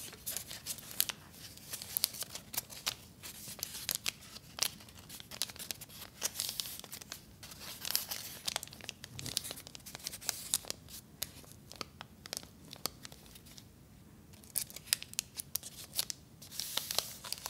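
Paper wrapper of a Tampax tampon crinkling and crackling as fingers rub and turn it, in irregular runs of sharp crackles that thin out for a moment about two-thirds of the way through.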